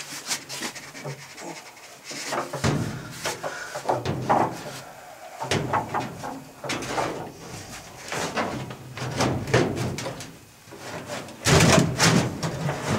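Anode rod being worked down into the top port of an electric water heater: irregular metal clunks, knocks and scrapes as the rod, bent to clear the limited headroom, catches on the port and inside the tank. The knocking comes in bursts with short lulls between.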